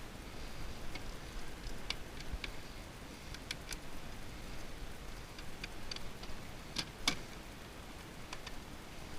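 Scattered small metallic clicks and ticks of a hand screwdriver and loose parts being worked while screws are taken out of an electronics board, with one sharper click a little past the middle.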